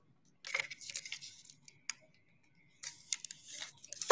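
Trading cards and plastic card holders being handled close to the microphone: two stretches of rustling and sliding, about half a second in and again about three seconds in, with scattered light clicks.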